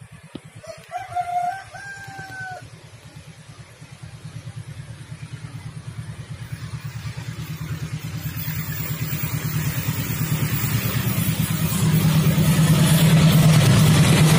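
A rooster crows once about a second in. Then an approaching diesel locomotive's engine grows steadily louder, its low pulsing note loudest near the end as it draws close.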